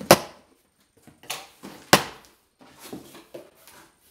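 Cardboard box being cut open with scissors and its flaps pulled apart: two sharp snaps, one right at the start and one about two seconds in, with softer scraping and rustling of cardboard between them.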